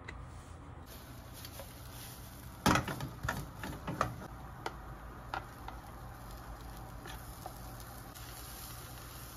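Carrot pancake batter cooking in a greased, lidded frying pan over low heat: a faint steady hiss, with a run of light clicks and knocks about three seconds in, the first the loudest.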